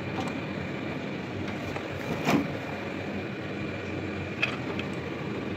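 Steady mechanical hum with a sharp metallic knock a little over two seconds in and a lighter one past four seconds, as the steel tubing and steering parts of a homemade buggy are handled.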